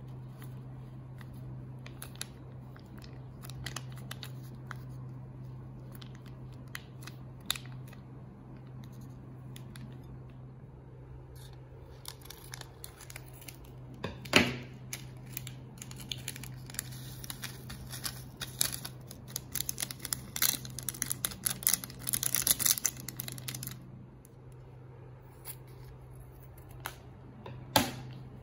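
Plastic instant-ramen seasoning sachets being handled and opened: crinkling and tearing of the packets with scattered clicks, a sharp knock about halfway through, then a dense run of rustling and clicks in the second half. A steady low hum sits under it all.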